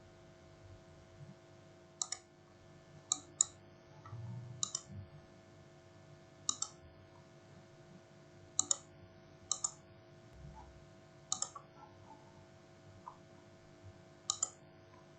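Computer mouse clicking: about a dozen sharp, irregular clicks, several in quick pairs, over a steady low electrical hum.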